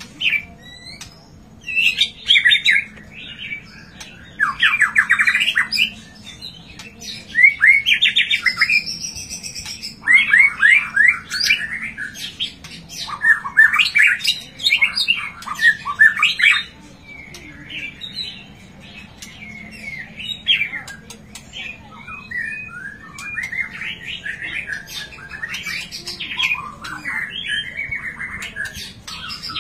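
White-rumped shama (murai batu) singing: a run of varied phrases of rapid repeated notes and clear whistles, separated by short pauses, louder in the first half and softer toward the end.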